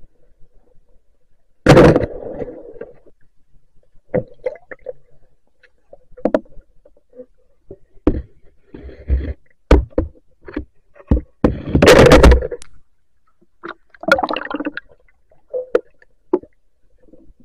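Underwater handling noise from a submerged camera: irregular knocks, clicks and scrapes with water swirling. It has two louder rushing bursts, one about two seconds in and one around twelve seconds.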